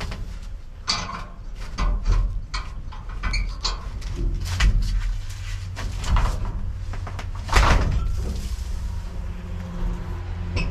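Rummaging through trash in a metal dumpster: plastic bags rustling and boxes and objects knocking at irregular moments, the loudest knock about seven and a half seconds in, over a steady low hum.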